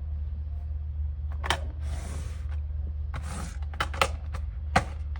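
Steady low hum, with a few sharp clicks and two short hissing rustles.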